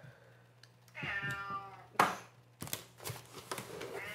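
Domestic cat meowing: one drawn-out meow about a second in, a sharp thump just after, and a second meow starting near the end.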